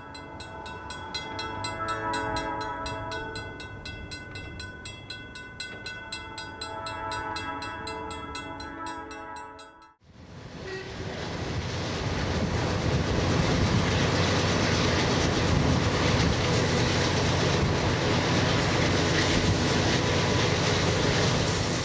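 A railroad grade-crossing bell dings rapidly while a train horn sounds two long blasts. After a cut at about ten seconds comes the steady rumble and rail noise of a moving freight train, heard from on board.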